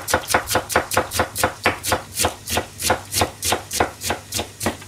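Kitchen knife rapidly slicing napa cabbage stems on a plastic cutting board, an even run of about four or five strokes a second that stops just before the end.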